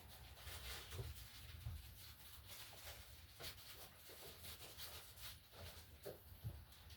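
Near silence: quiet room tone with a low steady hum and a few faint scattered clicks and rustles.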